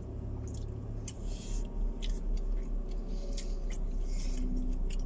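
Eating sounds: chewing, and a plastic spoon scraping and clicking on a takeaway food container in short crisp strokes, over a low steady hum inside a car's cabin.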